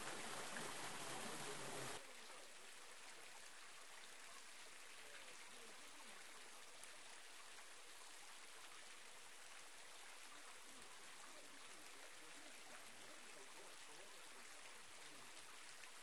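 A thin waterfall, reduced to a trickle by drought, splashing steadily into a rock pool. About two seconds in the water sound drops to a quieter, steady trickle.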